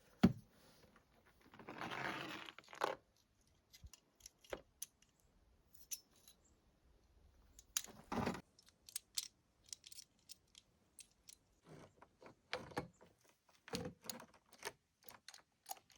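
Chainsaw bar and chain being fitted back onto the saw by hand: scattered light metal clinks and clicks, with a short scraping rush about two seconds in and a duller knock about eight seconds in.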